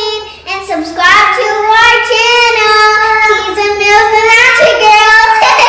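A child singing in a high voice, holding long drawn-out notes, with a short break about half a second in.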